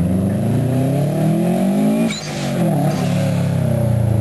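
Subaru Impreza's engine under hard acceleration, revs climbing steadily. About two seconds in the pitch and loudness drop briefly, as at a gear change, and then the revs climb again as the car comes close.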